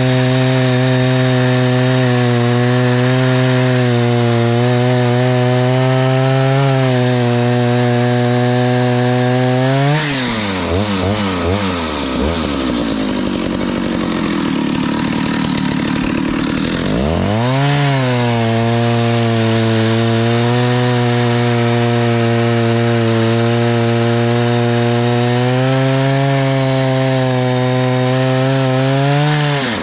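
Vintage Stihl 051 89cc two-stroke chainsaw running at high revs while cutting birch. Its note holds steady, then about a third of the way in the revs drop and waver under load for several seconds before climbing back up and holding high again, dipping once more at the end.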